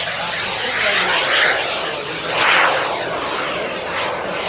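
Jet-powered Super Salto sailplane's small jet engine running at climb power as the glider pulls up and away after takeoff: a steady rushing jet noise that swells to its loudest about halfway through.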